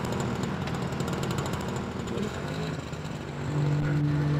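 Small motorcycle engine running as the rider pulls away. Sustained music notes come in near the end.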